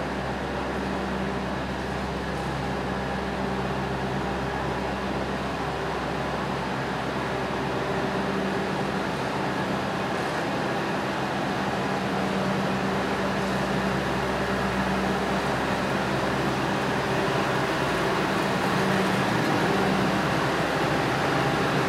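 Claas Jaguar 860 forage harvester's diesel engine running steadily as the machine drives slowly forward, its drone growing gradually louder as it approaches.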